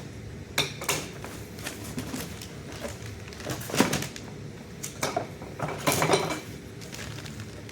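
Handling noise from blacksmithing hammers being set into a box: several separate knocks and clunks, the loudest about four and six seconds in.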